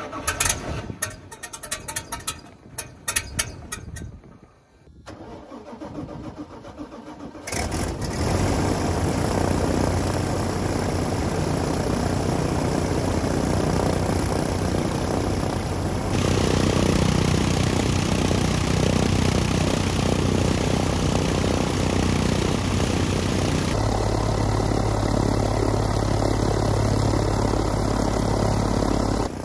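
UL Power UL520is air-cooled flat-six aircraft engine starting from cold: it catches with a sudden jump in level about seven seconds in, then runs steadily, turning the propeller. It is a very cold start even though the engine was preheated.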